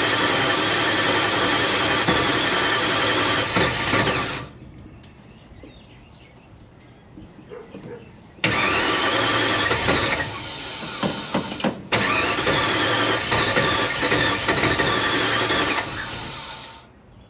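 Car engine being cranked over on its starter motor without catching: one long crank that stops about four seconds in, then after a pause of about four seconds two more long cranks back to back. The engine won't start.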